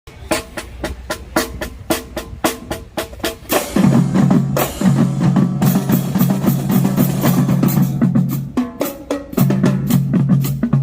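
Marching drumline playing: a steady run of sharp, evenly spaced strokes at about four to five a second, then about four seconds in the full line comes in, louder and denser with heavy low drums.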